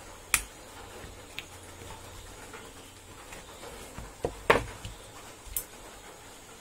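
Sharp clicks and knocks of hand tools (pliers and a screwdriver) against a chainsaw's plastic recoil starter housing and the bench: a click just after the start, a few small ticks, two louder knocks about four and a half seconds in, and one more click a second later.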